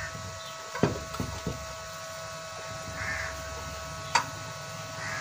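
Light metal-on-metal taps of a tool against the cover nuts of a water pump motor, knocking them to free them: three quick knocks about a second in and a single sharp click about four seconds in.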